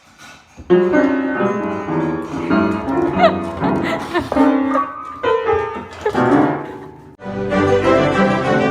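Music with piano and bowed strings, starting a little under a second in, with a short break near the end before it picks up again.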